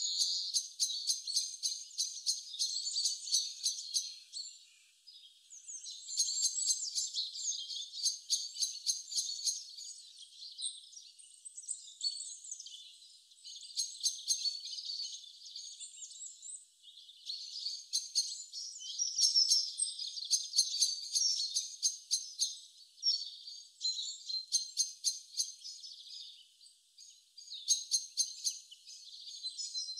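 Birdsong: several birds chirping and trilling in quick runs of high repeated notes that come and go, with no low sound beneath.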